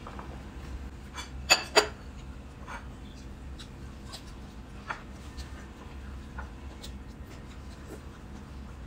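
Eating sounds: chewing and small mouth noises, with a metal spoon clinking twice sharply against a ceramic bowl about a second and a half in.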